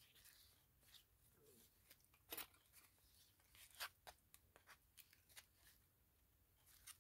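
Faint rustles and soft taps of paper pages and card flaps of a handmade junk journal being turned and handled, a scatter of short sounds with the clearest about two and a half and four seconds in.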